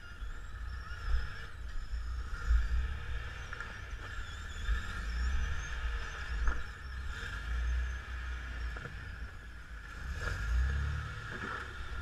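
Rock-crawling Jeep's engine running at low crawling speed as the rig climbs and tilts over boulders, with a continuous, uneven low rumble.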